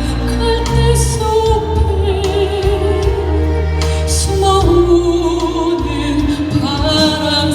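A soprano singing with vibrato, holding long phrases over instrumental accompaniment.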